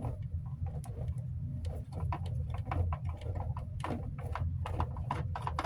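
Irregular clicks and taps of a small screwdriver working on the screws of a plastic fan housing, over a steady low hum.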